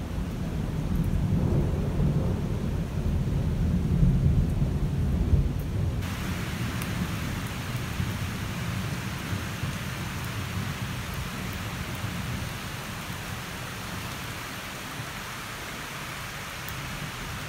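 Thunderstorm: a long, low roll of thunder over falling heavy rain, loudest about four to five seconds in. About six seconds in the rain hiss suddenly becomes much louder, and the thunder rumble slowly dies away.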